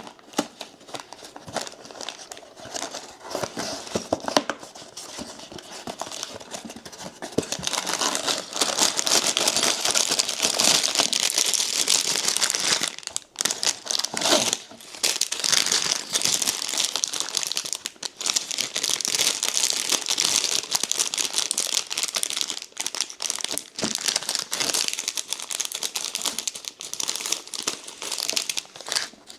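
A cardboard Lego box being opened with scattered rustles and clicks, then about seven seconds in the plastic bags of pieces crinkling loudly and steadily as they are handled and torn open.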